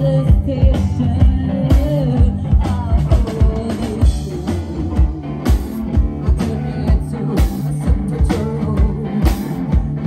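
Rock music with singing over a steady drum beat.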